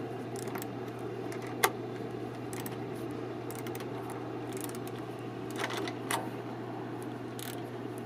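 Scattered small clicks and taps of a nut and washer being fitted by hand onto the air-filter housing of an Onan RV generator, with one sharper click about a second and a half in and a few more about six seconds in, over a steady low hum.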